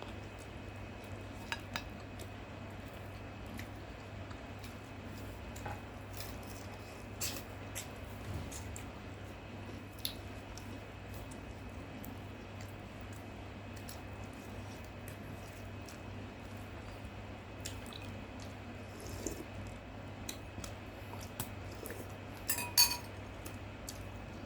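Cutlery clinking against plates and bowls during a meal, in scattered short clicks, with one louder ringing clink near the end, over a steady low hum.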